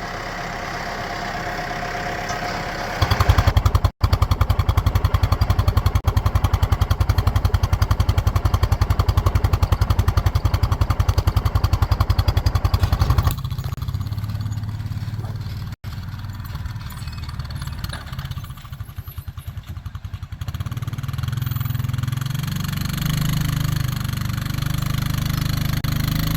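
Tractor engine running. It gets louder with a fast, even pulsing for about ten seconds, then drops back and builds again near the end.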